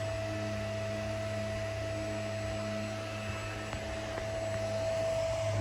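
A steady low hum made of several held tones, swelling slightly near the end.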